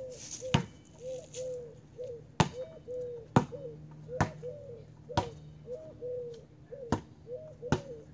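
A ball bouncing on pavement: seven sharp knocks, irregularly about a second apart. Under them, pigeons coo over and over in short low calls.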